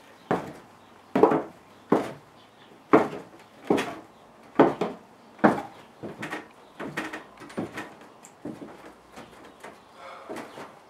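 Footsteps of boots on old wooden floorboards: heavy, loud heel strikes about one a second, turning softer and lighter from about six seconds in as the walker slows and stops.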